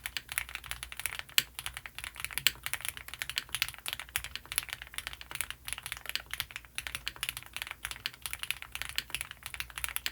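Fast, steady typing on a custom mechanical keyboard with lubed Gateron CJ linear switches and GMK doubleshot ABS keycaps, a dense run of keystroke clacks that stops at the very end.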